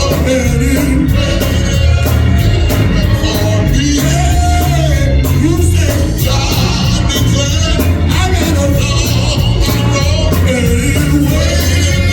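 Church worship music: singing over a live band, with a steady beat throughout.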